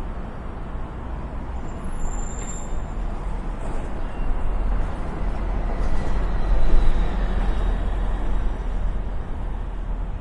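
City street traffic: a steady rumble and wash of passing vehicles. A short high-pitched squeal comes about two seconds in, and the traffic swells louder around six to seven seconds in as a vehicle passes close.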